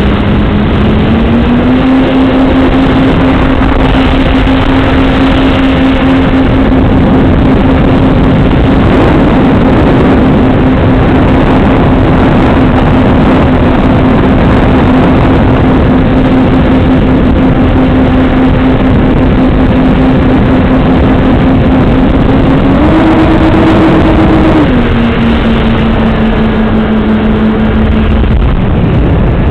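RC model airplane's motor and propeller running with a steady hum under heavy wind rush on the onboard camera's microphone. The hum steps up slightly a couple of seconds in, rises briefly about three quarters of the way through, then drops lower and fades near the end.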